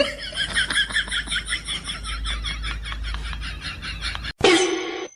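An animal making a rapid string of short, high chirping calls, about six or seven a second, which stops abruptly after about four seconds.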